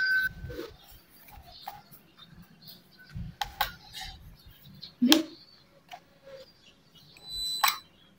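Scattered clicks and knocks from a drone's handheld remote controller being handled and its controls pressed, with a short high electronic beep about seven seconds in as the controller powers on.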